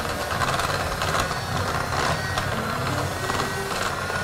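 Electric hand mixer running steadily at high speed, a steady whine with its beaters whirring through butter and sugar in a glass bowl, creaming it until light and fluffy.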